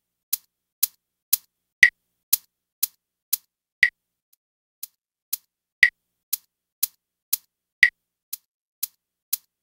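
REAPER metronome click track playing custom percussion samples from a Roland TD-7 sample library: an accented hit on the first of every four beats and a lighter click on the other three, about two beats a second. Around four seconds in, as the beat volumes are being changed, one click drops out and the next comes in faint.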